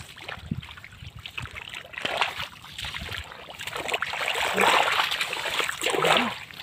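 Hands splashing and scooping through shallow muddy water and mud, with sloshing that grows louder in the second half.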